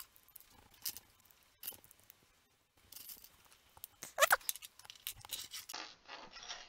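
Small plastic LEGO pieces handled and pressed together while minifigures are assembled: scattered light clicks and rustles, with a couple of sharper snaps about four seconds in.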